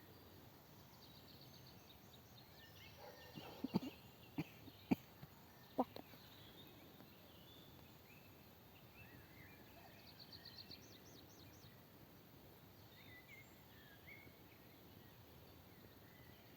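Quiet woodland ambience with small birds chirping in short, quick trills, once near the start and again about ten seconds in. Four or five sharp clicks or taps come between about four and six seconds in.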